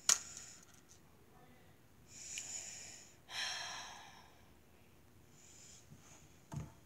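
A boy breathing: a sharp click at the start, then a breath in about two seconds in followed at once by a stronger breath out, and a short low thump near the end.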